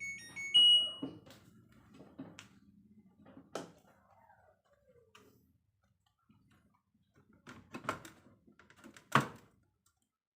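Short electronic beeps from a front-loading washing machine's control panel as its buttons are pressed, then scattered clicks and knocks.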